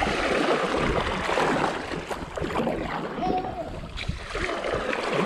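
Double-bladed kayak paddle dipping and pulling through river water in repeated strokes, the blades splashing and water swishing past the hull.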